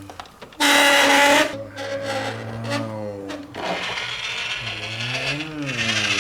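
Small electric motor of a toy RC vehicle whirring as it is throttled, its whine gliding up and down in pitch, with a loud full-speed burst about half a second in.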